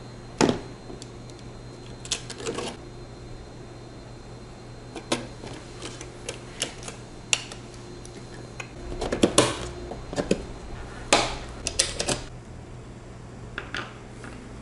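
Irregular sharp clicks and knocks of computer hardware being fitted onto a bare motherboard, as a stock Intel CPU cooler is pressed into place. The clicks are busiest about nine to twelve seconds in, over a low steady hum.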